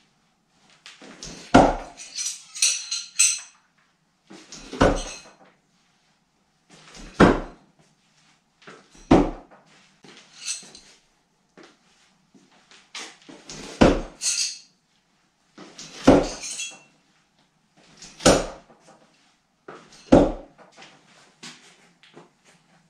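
Throwing knives hitting a wooden log-round target on no-spin throws, about eight sharp knocks a couple of seconds apart, some followed by a metallic clatter and ring.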